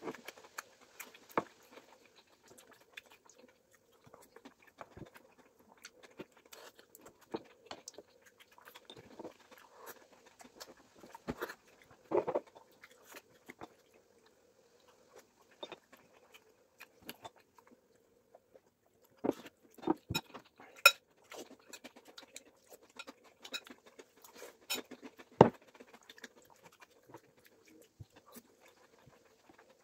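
Chewing and mouth sounds of people eating sushi rolls, with scattered clicks and taps of wooden chopsticks on the board and soy-sauce dish; a few taps stand out louder than the rest.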